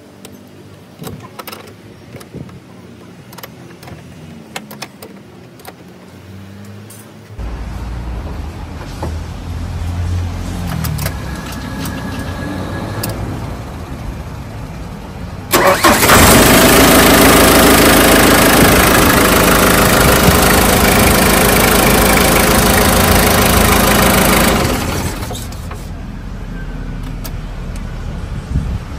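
Pickup truck's diesel engine started on a newly fitted 12V LiFePO4 lithium battery. After a few light clicks it comes to life about seven seconds in, runs much louder for about nine seconds, then settles to a steady idle near the end.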